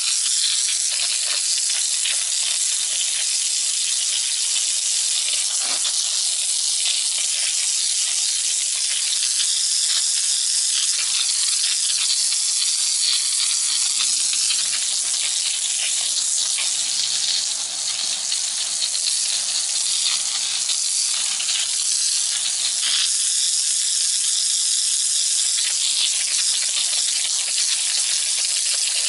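Garden hose with a sweeper nozzle: a steady hiss of a narrow water jet spraying and splashing against a brick wall.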